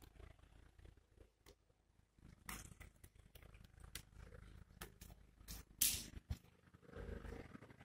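Faint scattered clicks and knocks over a low rumble, the loudest knock about six seconds in. Near the end a toddler's soft vocal sounds begin.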